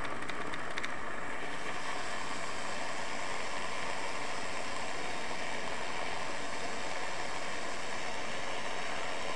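Handheld electric milk frother running steadily, its small motor whirring as the coil whisk spins in a mug of milky coffee.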